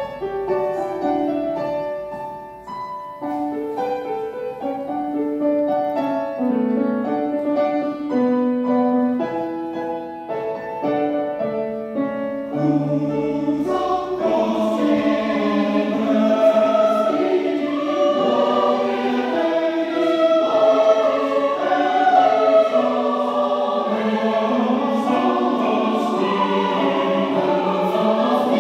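Mixed choir of men's and women's voices singing with grand piano accompaniment. The singing is lighter and sparser at first, then swells to fuller, denser singing about halfway through.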